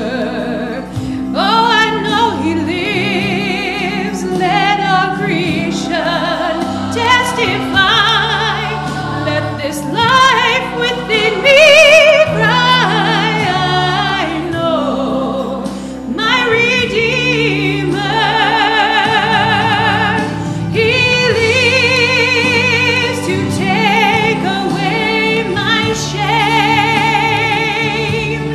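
A woman singing a gospel solo, holding long notes with vibrato, over an instrumental backing.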